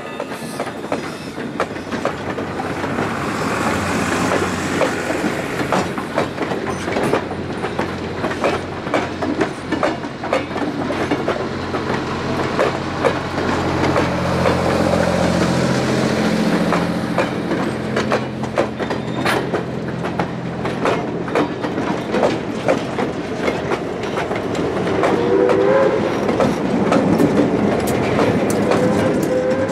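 Steam-hauled passenger train of Southern Railway #154, an 1890 Schenectady steam locomotive, rolling past: a steady rumble with a long run of clicks from wheels over rail joints. The locomotive's whistle starts to sound near the end.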